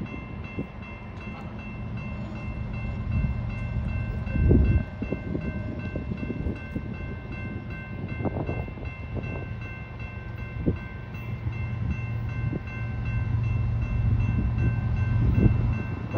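Railroad crossing warning bell ringing steadily, the crossing active with its gates lowering, over a low rumble broken by a loud thump about four and a half seconds in.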